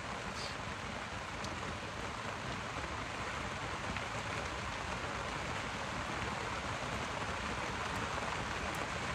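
Heavy rain falling steadily: an even hiss with a few faint ticks.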